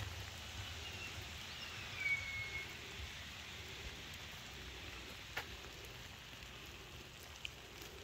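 Steady rain falling. About two seconds in comes a brief whistle that falls in pitch and then holds, and a couple of sharp taps follow later.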